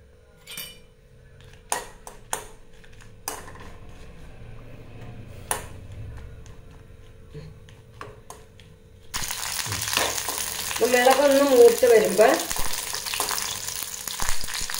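Dried red chillies frying in coconut oil in an aluminium kadai, stirred with a metal spoon. A few sharp clicks of the spoon on the pan come first, then a loud sizzle starts abruptly about two-thirds of the way through.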